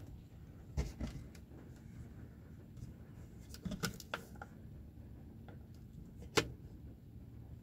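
Light plastic clicks and knocks from handling the Opel Adam's sun visor and its vanity mirror cover: a few small clicks, a cluster of knocks as the cover is worked, then one sharp click near the end as the cover is pushed shut.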